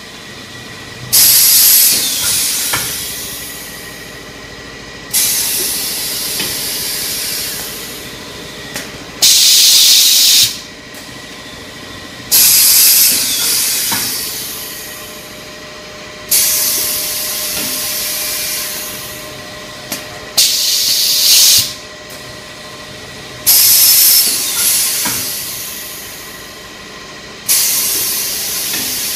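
Automatic pneumatic baking cup forming machine cycling, letting out a loud hiss of compressed air about every four seconds; each hiss starts sharply and fades away, over a faint steady machine tone.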